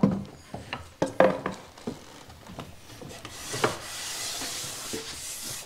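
A wooden board handled and set into a wooden bench vise: several sharp wooden knocks in the first second or so, then a soft, steady rubbing hiss as hands slide along the board's edge.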